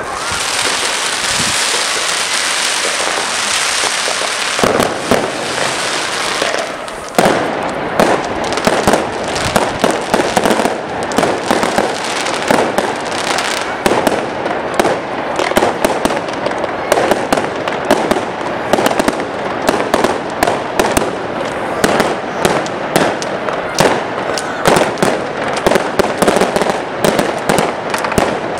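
Fireworks display: for the first seven seconds or so a dense high hiss, then from about seven seconds in a continuous rapid barrage of bangs and pops as aerial fireworks burst overhead.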